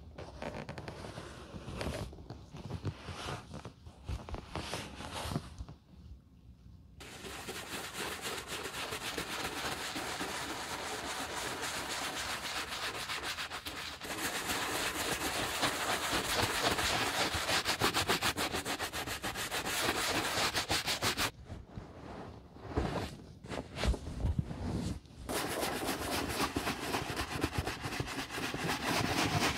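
A bristle brush scrubbing soapy lather on a leather boot in quick strokes. The first few seconds are separate strokes, then there is a brief pause. Fast continuous scrubbing follows, which breaks into separate strokes again for a few seconds past the middle before resuming.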